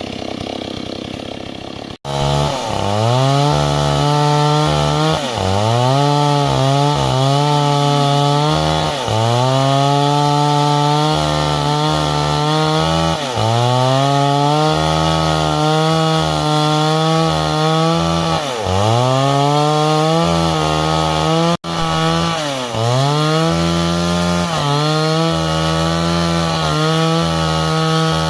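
Stihl MS 382 two-stroke chainsaw running at high revs while cutting wood. Its pitch sags every few seconds as the chain bogs in the cut, then climbs back. The sound breaks off abruptly for an instant twice, about two seconds in and again near the two-thirds mark.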